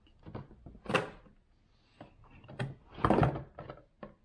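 Toy vending machine being worked by hand: its dial is turned and plastic capsules knock and rattle inside, several short clunks with the loudest about three seconds in.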